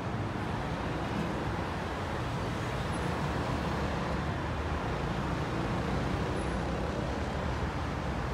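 Steady rumble of city road traffic, with no distinct events standing out.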